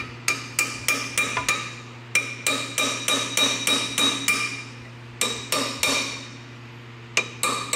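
Hammer striking steel, bending a locking tab over the crankshaft counterweight nut. The blows come in quick runs of several ringing strikes with short pauses between, over a steady low hum.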